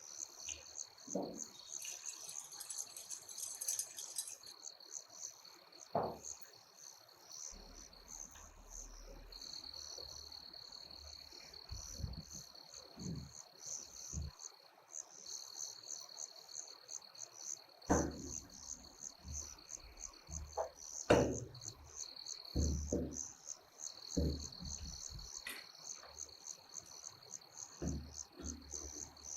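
Insects chirping in a steady, high, continuous trill with rapid pulsing, and scattered short knocks and thumps.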